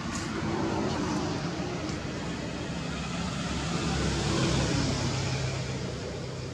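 Motor vehicle engine hum, growing louder to a peak about four and a half seconds in and then easing off, as a vehicle passes.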